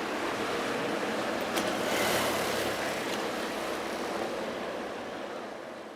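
A steady rushing noise, like surf or wind, that swells about two seconds in and fades away toward the end.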